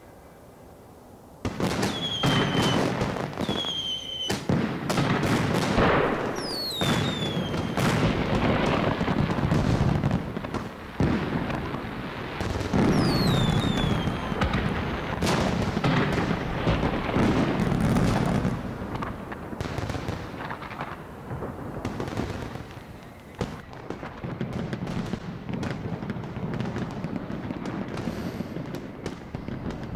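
Fireworks going off: a sudden onset about a second and a half in, then a dense run of bangs and dull booms with crackling, and several rockets whistling down in pitch. The bursts thin out somewhat in the last third.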